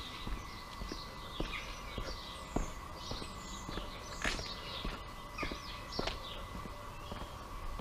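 Footsteps of a person walking on stone paving flags, about two steps a second, while small birds chirp and twitter. A faint steady hum runs underneath.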